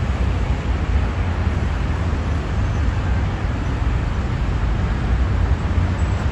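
Steady city road traffic: a constant wash of passing cars with a heavy low rumble.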